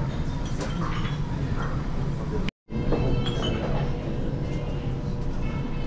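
Teppanyaki restaurant room noise: a steady low rumble with faint clinks of dishes and glasses and distant voices. The sound cuts out completely for a moment about two and a half seconds in.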